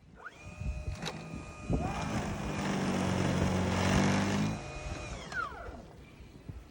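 A motor whines up to speed, runs for a few seconds with a loud rushing noise and a low hum, then winds back down.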